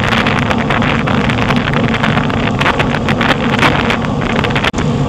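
Wind buffeting the microphone of a camera on a moving road bicycle: a loud, steady rush with gusty flutter and a low rumble underneath. It cuts out for an instant near the end.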